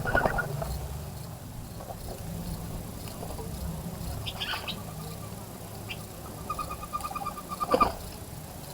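Small birds calling in quick trills of short, evenly spaced notes, the longest lasting about a second near the end, with a few short sharp noises, the loudest near the end.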